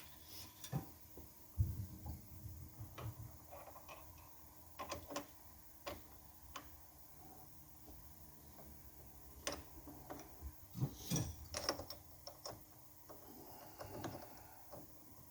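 Scattered light clicks and knocks at uneven times from tools being handled and set up, over a faint steady hum; no machine is running.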